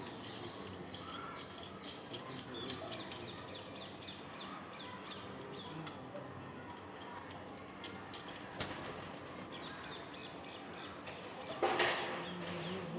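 Birds chirping and calling against steady outdoor background noise, with scattered clicks and a louder knock or scrape near the end.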